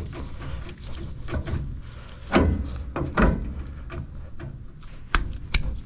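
Steel axle shaft flange clunking against the hub of a Sterling 10.25 full-floating rear axle as it is turned and pushed onto the studs. Two heavy clunks come about two and three seconds in, then two sharp metallic clicks near the end.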